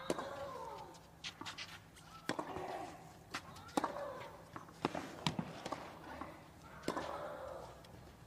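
Tennis rally on a clay court: sharp racket-on-ball hits about every second or so, several of them with a player's loud, pitched grunt on the stroke.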